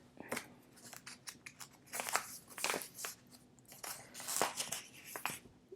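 Plastic card sleeves and photocards rustling and crinkling in the hands, with small irregular clicks and scrapes as a card is worked into a sleeve.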